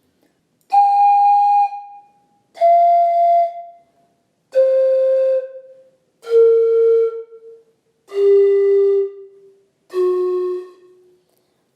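Handmade ceramic antara, an Andean clay panpipe, blown one tube at a time: six separate breathy notes of about a second each, stepping down in pitch from note to note. The tone is bright, from the antara's wider tubes.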